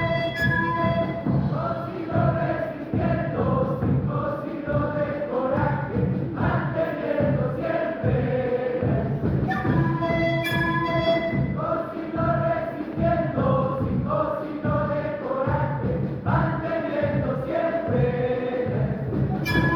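Orchestra of Andean and Latin American instruments playing a piece live, with several melodic lines over a pulsing, rhythmic low accompaniment.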